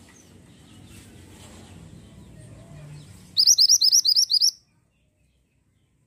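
Minivet (mantenan) song: a fast, loud run of about nine sharp rising high notes lasting about a second, past the middle, which cuts off suddenly. A faint low hum comes before it.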